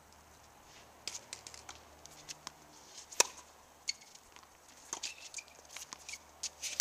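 Sounds of a tennis rally on a hard court: sharp pops of the ball off racket strings, the loudest about three seconds in, among scattered scuffs and short squeaks of tennis shoes.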